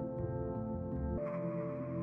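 Calm ambient background music of long, sustained notes; a little over a second in, a soft airy wash comes in and the deep bass drops away.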